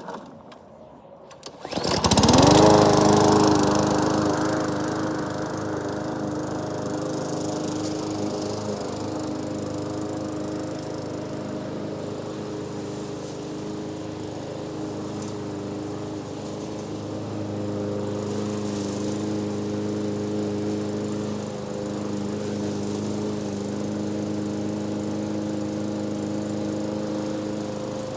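A lawnmower engine starts after a few clicks, about two seconds in. It revs up quickly, then runs steadily at working speed.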